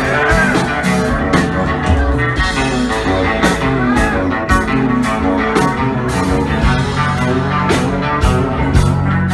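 Live band playing a rock-blues number: electric guitar over bass, keyboard and a steady drum-kit beat.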